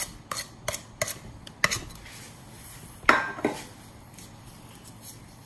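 A metal spoon clinks against a stainless steel mixing bowl as shortening is scooped into flour: several light taps in the first two seconds, then a louder clank with a short ring about three seconds in.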